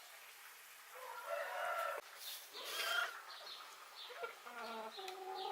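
Chicken calling: two loud, drawn-out calls in the first half, followed by a run of shorter, fainter calls.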